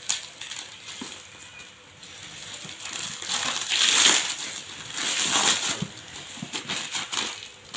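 Plastic wrapping crinkling and rustling as it is sliced and pulled off a cardboard box with a utility knife, in uneven bursts with small clicks, loudest about four seconds in.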